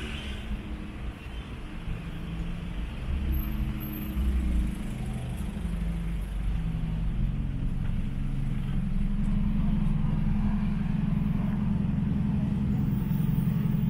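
City street traffic: motor vehicle engines running close by, with a low engine drone that grows louder and steadier about halfway through.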